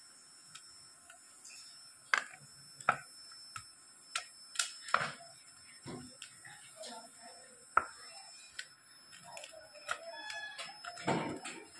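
Hands crumbling fresh paneer on a steel plate: irregular sharp clicks and knocks as fingers and lumps hit the metal, with soft crumbling in between.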